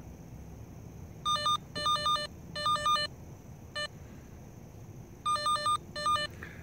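Handheld receiver of a Vevor underground cable locator beeping as it picks up the tracing signal: short, high electronic beeps in quick clusters of two to four. They come about a second in, again over the next two seconds, once on their own around the middle, and in two more clusters near the end.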